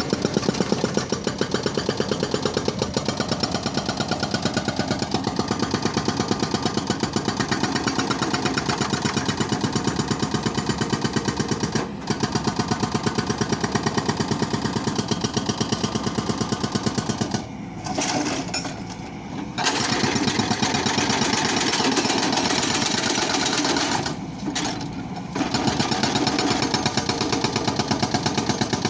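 Demolition breaker hammer pounding concrete in rapid, steady strokes, easing off briefly twice.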